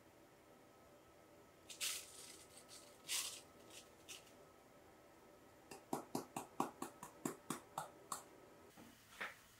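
Ground coffee poured from a Hario hand mill's glass grounds container into a paper filter in a ceramic V60 dripper, with two short rustling hisses of grounds sliding onto the paper. Then about a dozen quick taps on the upturned container, about five a second, knocking out the last grounds.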